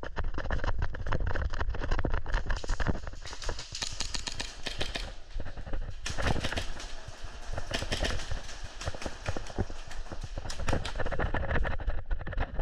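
A player's footsteps at a run, a rapid irregular patter of knocks and clicks, with gear rattling and rumble from the moving body-worn microphone.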